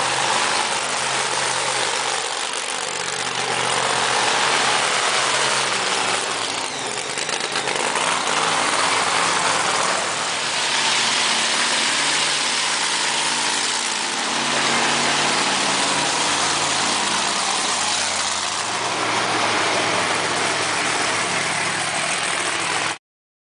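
Monster trucks' supercharged V8 engines running loud as the trucks drive past one after another. The noise swells with each pass and cuts off suddenly near the end.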